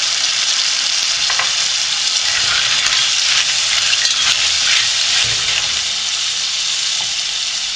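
Clams sizzling in hot olive oil with shallot in a pot over a gas flame, a steady loud hiss. A few seconds in they are stirred with a wooden spoon.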